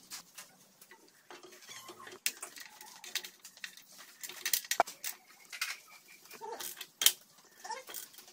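Hand tools working on steel parts: a spanner and a socket ratchet clicking and clinking as bolts are turned, with scattered sharp metallic knocks, the loudest just before five seconds in and another at about seven seconds.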